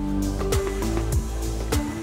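Background music: held notes over a steady electronic drum beat, with a low kick drum falling in pitch about every 0.6 seconds.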